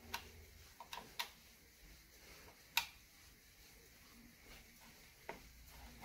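Buttons on an exercise bike's plastic LCD monitor being pressed: a few separate sharp clicks, the loudest about three seconds in.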